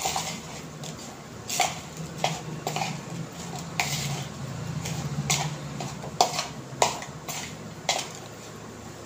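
Steel spoon stirring chopped onion stuffing in a bowl: irregular clicks and scrapes of the spoon against the bowl.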